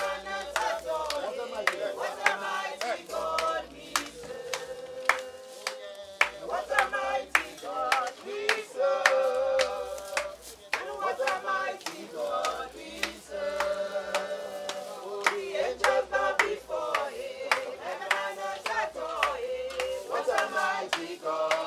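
A group of voices singing a gospel hymn chorus unaccompanied, cut through by many sharp, irregular percussive hits.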